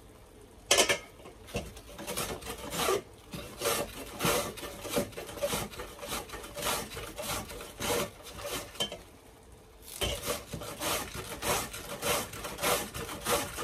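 Cabbage being shredded on a hand slicer: a steady run of rasping strokes, about two to three a second, with a brief pause about two-thirds of the way through.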